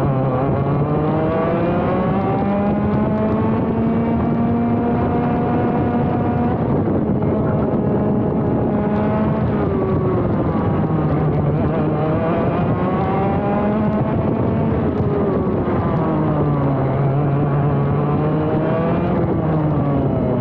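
ROK GP Junior 125cc two-stroke kart engine heard onboard at racing speed: the revs climb through one long pull for about six seconds, then fall and climb again several more times as the kart brakes for corners and accelerates out of them.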